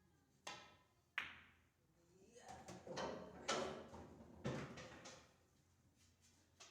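Pool balls clacking on a billiard table: two sharp clicks less than a second apart, then a run of knocks and rattling lasting about three seconds, and a small click near the end.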